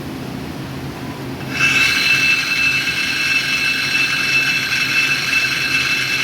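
YCM NTC-1600LSY CNC lathe running a dry run. A low machine hum, then about a second and a half in a loud high-pitched whine of several steady tones starts suddenly and holds steady.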